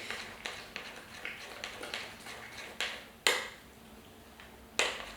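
A utensil stirring a thick cream cheese and Biscoff paste mixture in a bowl by hand, with a run of light clicks and taps against the bowl and a few sharper knocks after about three seconds.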